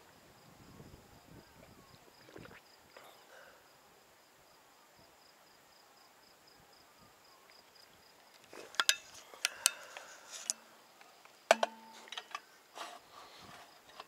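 Faint, steady insect chirping, a high pulsing note. In the last third comes a run of sharp, loud clicks and knocks.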